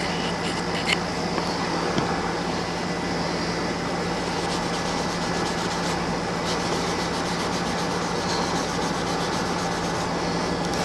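Fine steel wool rubbing with gun oil over a black DLC-coated knife blade, polishing away scuff marks: a steady, even rubbing noise over a low steady hum.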